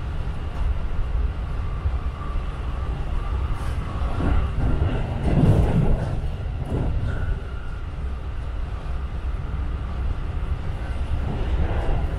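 Inside the carriage of a JR Tokaido Line electric commuter train in motion: a steady low rumble of the wheels on the rails. A louder rushing swell comes about halfway through as another train passes on the next track.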